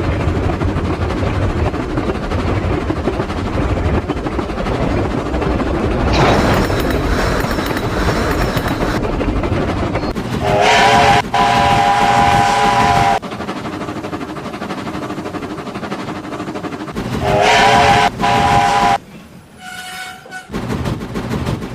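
A train running along the rails with a steady rumble and clickety-clack, sounding two long multi-note horn blasts of about three and two seconds. The sound drops away briefly near the end, then the rumble picks up again.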